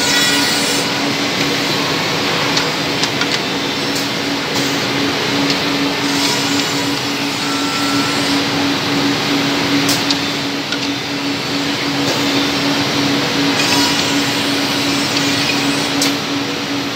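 CNC double-end tenoning machine with four cutters running: a steady motor hum under a loud, even rushing noise of the spindles and dust extraction, with a few sharp clicks.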